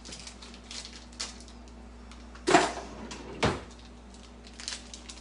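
A plastic bag of shredded cheese being cut open with a blade: a few light snips and clicks, with two louder knocks about halfway through, the second one deeper.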